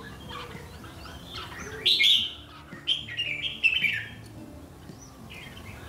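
Caged red-whiskered bulbuls calling: short bright chirps and whistled phrases, loudest about two seconds in and again between three and four seconds.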